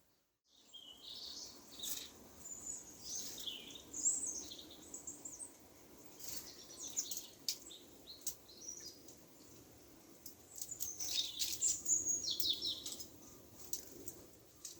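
Small songbirds chirping and calling in quick, high-pitched bursts, mixed with sharp little clicks and taps, over a faint steady city hum. The calling is busiest about two-thirds of the way through.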